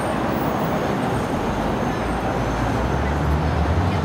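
Busy city-street traffic noise, with a passing motor vehicle's low engine rumble growing louder in the second half.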